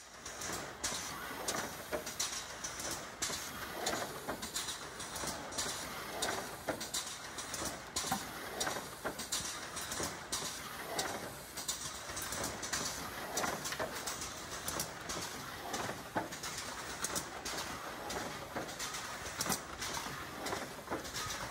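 Automatic beer-case cartoning machine running: a steady clatter of irregular metal clicks and knocks with hisses from its air-driven parts, as cartons are erected, loaded with cans, glued and pressed shut.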